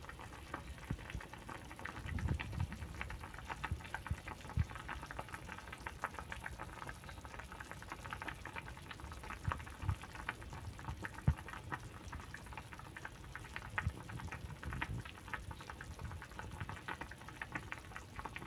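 Pot of pork sinigang boiling: the broth bubbles with a dense, irregular crackle of small pops. Occasional low thumps sound through it.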